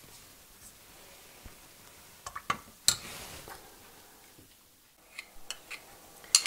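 A few light clinks and knocks of dishware as a small bowl of stiffened glaze is set into a stainless pot of hot water to soften it: a cluster of sharp clicks a little before halfway, then a few faint ticks near the end.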